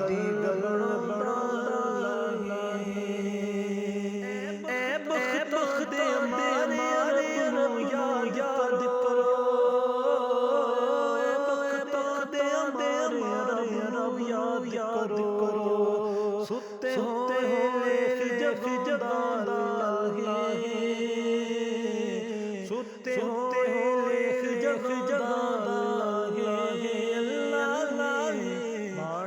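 A vocalist singing a devotional kalam in long, ornamented held notes, flowing with only brief breaks.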